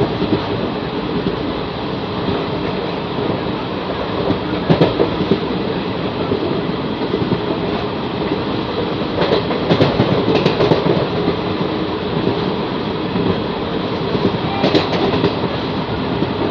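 Express passenger train running at speed, heard from an open coach doorway: a steady rumble of wheels on rail, with short metallic clacks from the wheels over the track about five seconds in, in a cluster around ten seconds, and again near the end.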